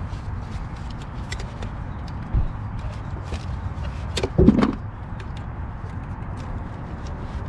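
Small clicks and knocks of plastic clips, a sensor connector and a C-clamp being worked loose by hand on a charge pipe, over a steady low rumble. About two and a half seconds in there is a dull knock, and about four and a half seconds in a louder knock with a short squeak.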